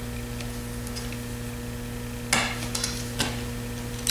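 A couple of light knocks and clicks as the aluminium square tube is turned over on the workbench, about two seconds in and again about a second later, over a steady electrical hum.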